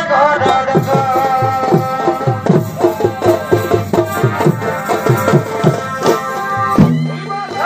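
Folk-style music with hand-drum strokes, each dropping in pitch, about two a second, under a steady melody; the drumming stops near the end, leaving a held note.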